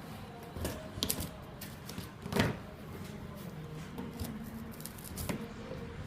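A few scattered clicks, knocks and rustles from handling the packaging while unboxing a microwave, the loudest about two and a half seconds in.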